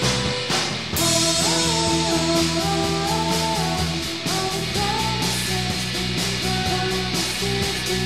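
Rock music led by an electric guitar, its held notes sliding up and down in pitch over a steady low backing.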